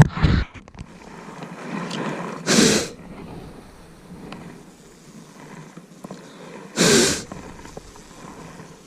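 A sharp knock at the start, then two short rushing puffs of air noise about four seconds apart.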